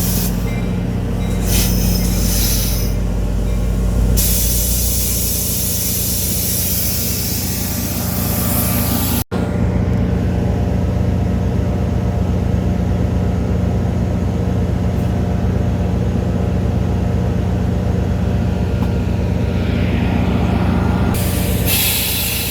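EMD F40PH-3C diesel locomotive's two-stroke V16 engine running steadily at a low throttle. A loud hiss of air rides over it for the first several seconds and again near the end. The sound cuts out for an instant about nine seconds in.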